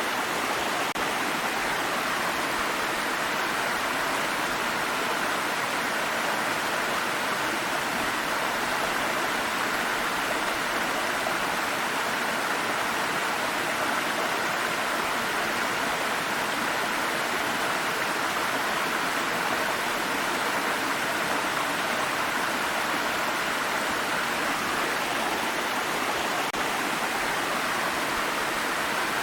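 Water stream flowing over rocks: a steady, even rushing of running water.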